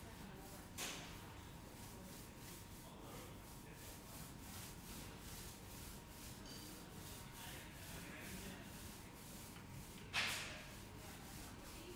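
Paint roller rolling on a wall, a soft, steady rubbing hiss. Two louder swishes come about a second in and again near the end, the later one the loudest.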